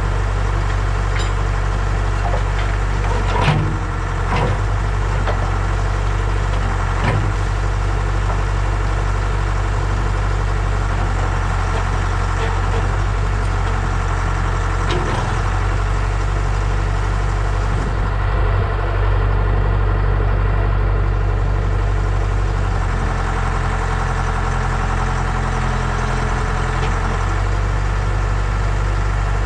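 Case 680B backhoe's engine idling steadily. A few sharp metallic knocks come in the first several seconds, and the engine note changes for a few seconds past the middle.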